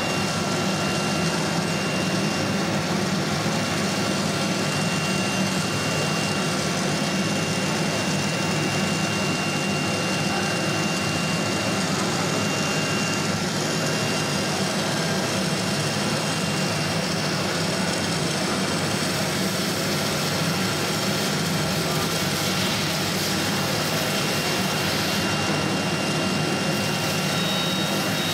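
Steady whirring machine noise from the CNC router installation, with a thin, constant high whine and no changes in pitch or level.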